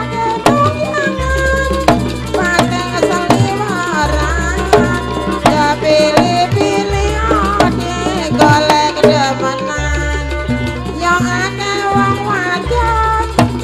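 Live Banyuwangi jaranan ensemble playing: hand-struck kendang drum strokes driving a fast rhythm under a wavering, bending lead melody, with deep low tones held for a few seconds at a time.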